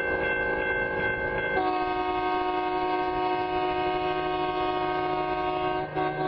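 Train horn blowing a long, steady chord that drops to a lower pitch about one and a half seconds in, with a brief break near the end.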